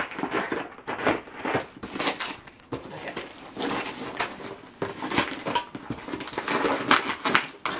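Brown wrapping paper and packing tape being torn and pulled off a cardboard box, in irregular rips and crinkles.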